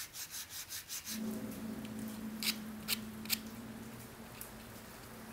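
A tapered wooden stick being sanded by hand: quick back-and-forth rubbing strokes, about five a second, that stop about a second in. Then a low steady hum and three light clicks.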